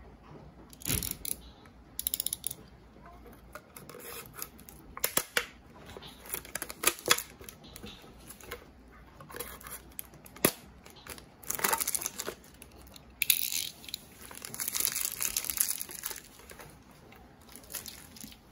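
Label being torn and peeled off a plastic water bottle: irregular crackling and crinkling of the plastic with scattered handling clicks, and a longer run of tearing about two-thirds of the way through.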